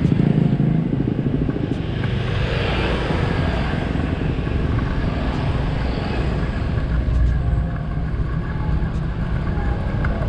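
Motorcycle being ridden along a paved road: a steady engine note mixed with wind and road noise.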